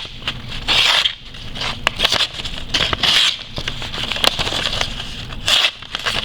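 Knife blade scraping and crackling in a few short strokes, about two to three seconds apart, with small clicks between them.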